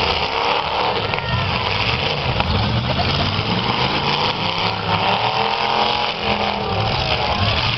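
V8 engines of several demolition derby cars running loud and revving, their pitch rising and falling as the cars push against each other.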